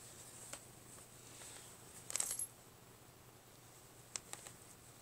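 Faint handling noise from a hand scratching a cat's chin right by the phone: a few light clicks, and a short clatter of clicks about two seconds in.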